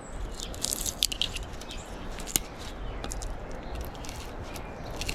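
Small crisp clicks and scratching as microwave wire leads are handled and checked for copper with cutters. A flurry of clicks comes about half a second to a second and a half in, and one sharp click about two and a half seconds in, over a low steady hum.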